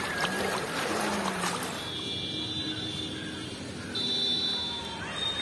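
Muddy floodwater rushing and splashing for about two seconds. Then a high, steady buzzing tone sounds twice, with a gap between.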